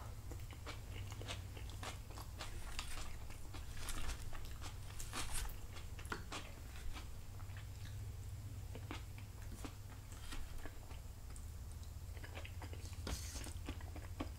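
A person chewing and biting soft roasted sweet potato close to the microphone, with many small wet mouth clicks, over a low steady hum.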